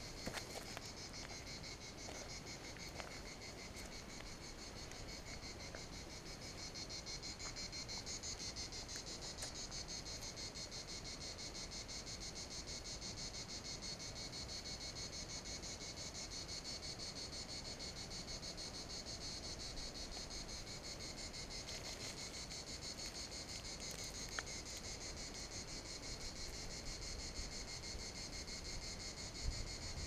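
Steady chorus of chirring insects: a high-pitched, fast, even pulsing that grows slightly louder after several seconds, with a few faint ticks here and there.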